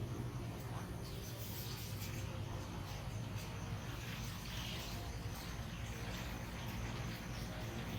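Steady low background hum with a faint high hiss and a few faint, scattered clicks.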